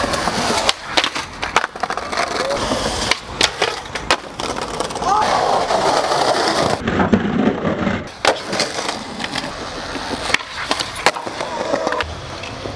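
Skateboard wheels rolling on concrete, with many sharp clacks from the board popping and landing.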